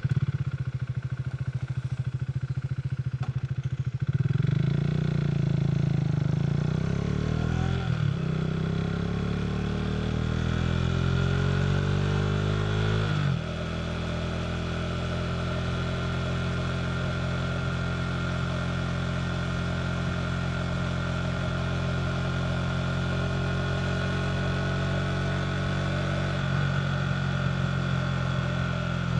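KTM RC 390's single-cylinder engine running through a Two Brothers slip-on exhaust. It starts abruptly, the engine note climbs slowly over the first dozen seconds, then drops suddenly and holds a steady note.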